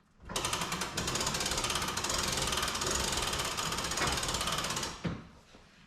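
Coleman pop-up camper's roof lift mechanism being cranked, a steady rapid clicking of gears and ratchet for about five seconds that stops near the end.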